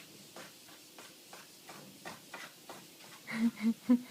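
A cat pawing at the litter in its litter box, a run of short soft scrapes about two or three a second, covering strokes that keep falling short of the litter. Near the end a person's voice comes in louder.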